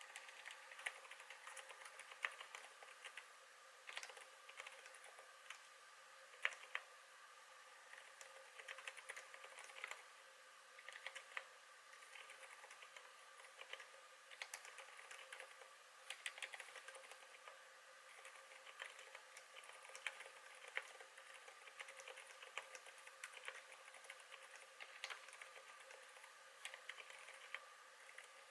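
Typing on a KBD8x MKII mechanical keyboard with lubed MX Zilent silent tactile switches: very quiet keystrokes in irregular runs, with a few louder taps, over a steady background hum.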